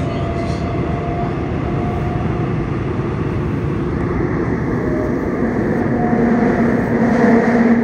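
Seoul Subway Line 6 train with a Mitsubishi IGBT-VVVF inverter running between stations, heard inside the car: a steady rumble of wheels on rails. A humming motor tone grows louder in the last couple of seconds.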